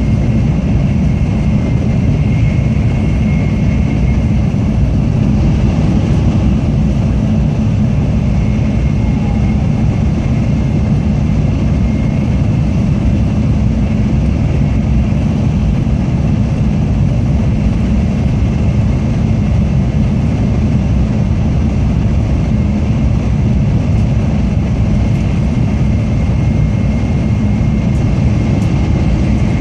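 Steady rumble of a Tokaido Shinkansen train running at speed, heard from inside the passenger cabin, with a faint thin high tone held steady over it.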